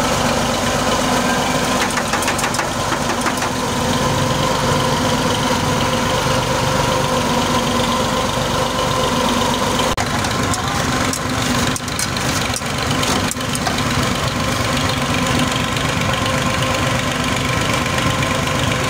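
Tractor's diesel engine running steadily, driving a mustard-oil expeller through its PTO shaft.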